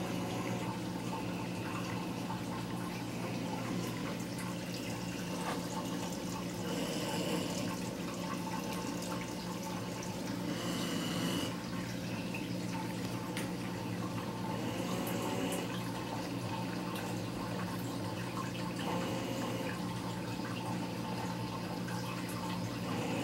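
Reef aquarium water circulating, with a steady low hum under a trickling, bubbling water sound.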